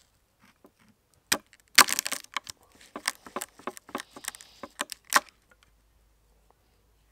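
Cooked velvet crab's shell cracking and splitting under a knife on a wooden chopping board: a run of sharp, irregular cracks and clicks, densest about two seconds in, dying away after about five seconds.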